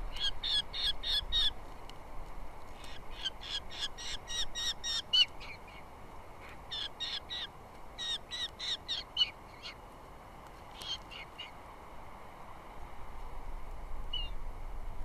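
Osprey calling at the nest: bouts of short, high, whistled chirps, about four or five a second for a second or two at a time, with pauses between bouts and a last lone call near the end.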